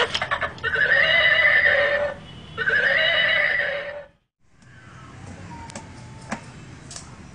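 Recorded horse neighing from a ride-on toy horse: two long neighs, each about a second and a half, then a sudden drop to silence. After that only faint ticks and clicks are heard.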